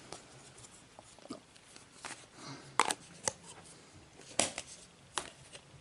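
Faint hand-handling noises as white Play-Doh is taken out and worked in the hands: a handful of soft, scattered clicks and rustles, the clearest a little after three seconds in and again past four seconds.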